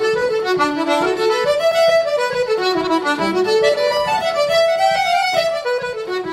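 Fiddle and accordion playing an Irish traditional tune together, a quick melody of short notes running up and down.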